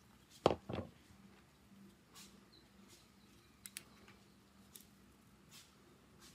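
Small tools and phone parts being handled: two soft knocks about half a second in, then a few scattered light clicks, over a faint steady hum.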